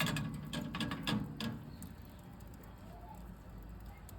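Firewood knocking and clattering as logs are put into a camping tent stove: several knocks in the first second and a half, then quieter.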